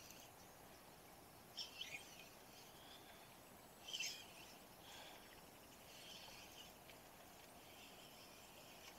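Near silence: faint outdoor ambience with a few brief, faint high-pitched chirps, about two seconds in and again around four to six seconds in.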